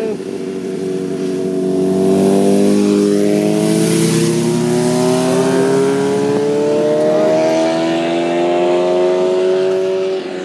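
A vehicle engine revving hard and held at high revs, its pitch climbing slowly for about eight seconds, then dropping back near the end.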